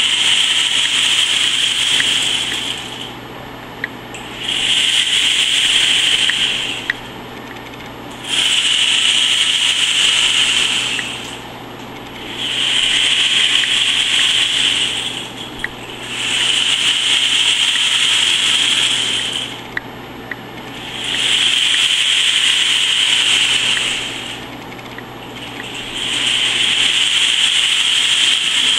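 Two homemade rain sticks, made from discarded materials, tipped end over end again and again. Each tip lets the filling pour down the tube in a hissing, rain-like patter that lasts about three seconds. The pours come about every four seconds, with a few small clicks in the pauses.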